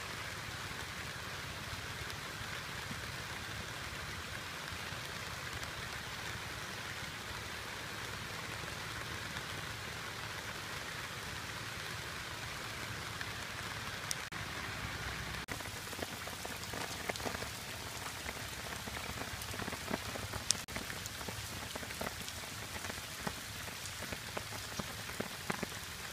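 Rain falling steadily on leaves, picked up by a phone's built-in microphone: an even hiss of rain, with single drops ticking more often in the later part.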